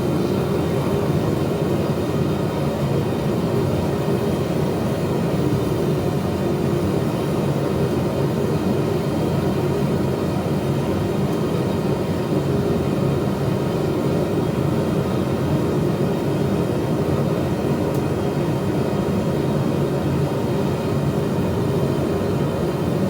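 Steady, loud drone of a running machine motor, unchanging throughout.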